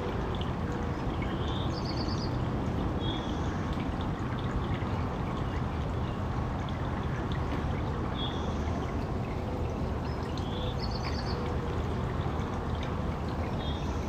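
Fountain water splashing and trickling steadily, with short high bird chirps a couple of times.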